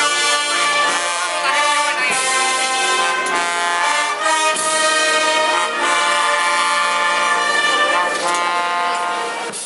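Brass band playing a slow procession march, trumpets and trombones holding long chords that change every second or two, dropping away near the end.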